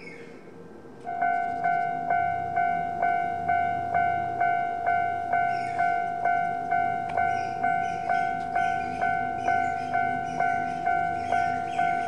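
Japanese railway level-crossing alarm starting about a second in: an electronic bell ringing a steady two-tone clang just over twice a second, the warning that a train is approaching. A fainter, higher ringing joins in about halfway through.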